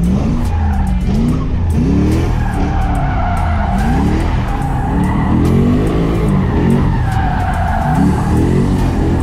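LS3 V8 engine of a swapped Nissan 240SX revving up and down again and again while drifting, with the tyres squealing in a wavering tone, over background music.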